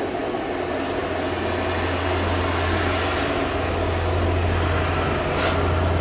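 A steady low hum over background noise, swelling slightly over a few seconds, with a brief hiss near the end.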